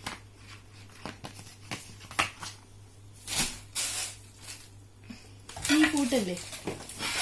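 Packaging being handled: scattered clicks and taps with a couple of rustles of plastic and cardboard, and a brief voice sound about six seconds in.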